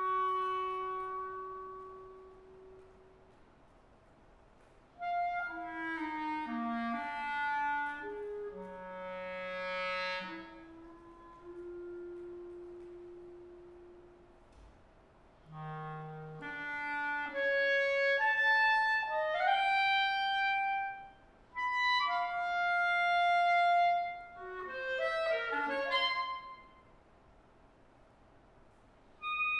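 Unaccompanied B-flat clarinet playing a solo concert piece. It opens with a held note that fades away, then plays phrases of quick runs and wide leaps, broken by short rests. A pause of about two seconds comes near the end before the next phrase begins.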